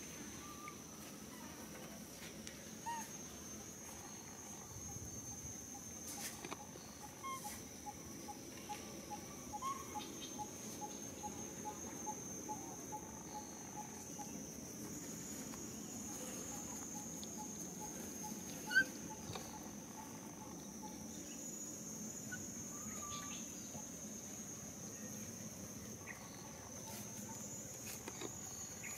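Outdoor ambience of a steady high-pitched insect drone, with a bird chirping in quick runs of short notes, about three or four a second. A single sharp click about two-thirds of the way through is the loudest sound.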